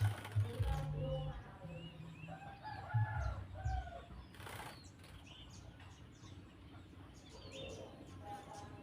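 A cucak jenggot (grey-cheeked bulbul) fluttering its wings in bursts during the first four seconds while being bathed, then quieter. Short bird chirps run throughout.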